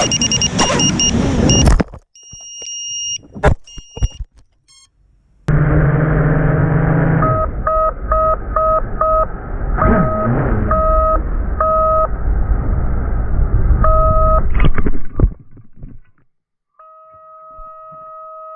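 Electronic beeping from an FPV drone's warning buzzer, in short runs of evenly spaced beeps over a noisy hiss, with gaps of near silence, then a steady unbroken tone near the end. Warning beeps of this kind follow the loss of the radio link (RX loss).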